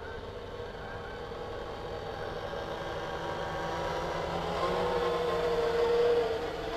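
R/C quadcopter's rotors humming in flight, the pitch wavering slightly with throttle. It grows louder as the craft comes close, peaking about six seconds in, then drops.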